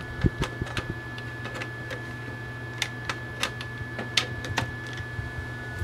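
Irregular light clicks and taps as a USB stick is pushed into the front port of a desktop computer, over a steady low hum.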